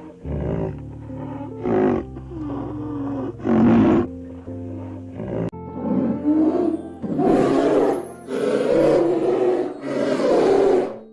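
A large animal roaring over and over, one roar every second or so, over background music.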